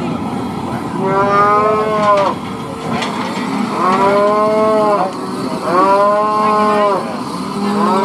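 A calf bawling while held down on its side for branding: three long calls about two seconds apart, with a fourth starting near the end.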